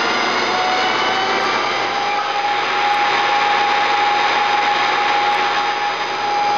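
Acer 1760G geared-head engine lathe running a dry facing cut in 4140 pre-hard steel: a steady machine whine over the hiss of the insert cutting. The whine rises slightly in pitch about half a second in, as the constant-surface-speed drive raises the spindle speed while the tool moves toward the centre.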